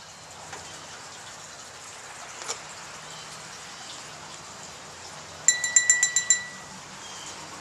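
A small bell or chime struck rapidly about eight times in under a second, its clear tone ringing on briefly afterwards, over a steady low background hiss.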